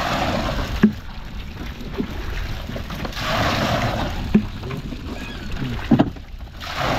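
Water splashing and sloshing around a wooden fishing boat in three surges, with a few short knocks, over a steady low rumble.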